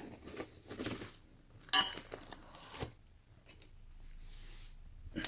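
Rustling of the foam protective wrap around a computer monitor as it is handled, in a few short bursts, with a sharp clink that rings briefly about two seconds in.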